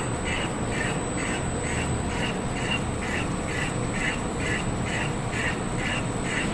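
CNC notching machine notching a steel tube in a steady rhythm, a little over two strokes a second, over a continuous machine hum and a thin high whine.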